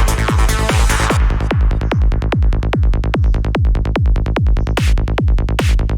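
Electronic trance loop of a punchy kick drum and rolling bass playing back, each hit sliding quickly down in pitch. The higher synth layers drop out about a second in, leaving mostly kick and bass with short high swishes.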